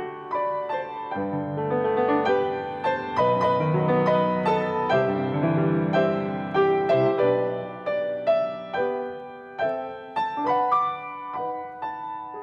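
Piano playing, notes and chords struck and left to ring.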